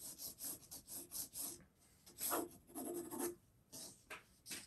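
Pencil scratching on drawing paper: a run of short, light sketching strokes, about two or three a second, with brief pauses between groups.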